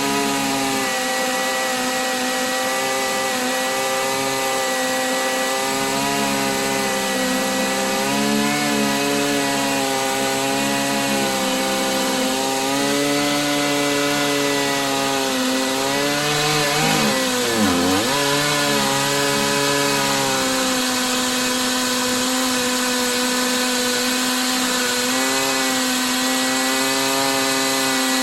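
Stihl MS880 two-stroke chainsaw on an Alaskan mill with a 41-inch bar and ripping chain, running steadily under load as it rips lengthwise through a green pine log. The engine pitch wavers slightly, then drops sharply once, about two-thirds of the way through, and recovers.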